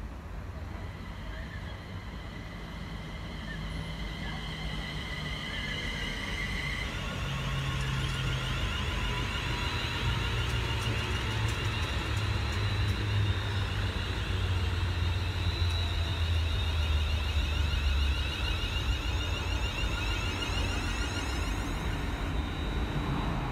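Train running past: a low drone with several high-pitched whining tones above it. It grows louder to a peak in the middle and eases a little toward the end.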